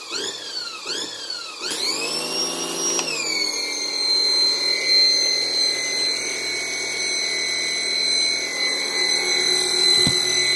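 Portland pressure washer surging with the trigger released: its motor and pump repeatedly speed up and drop back, about every 0.7 s, because the cracked gun handle leaks continually. Partway through, the sound climbs and settles into a steady high whine.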